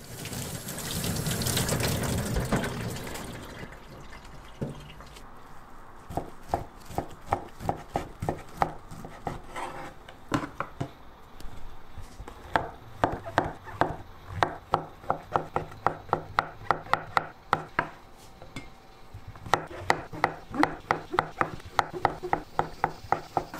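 Water running from a tap for the first few seconds, then a knife chopping on a cutting board in three runs of steady strokes, about three a second.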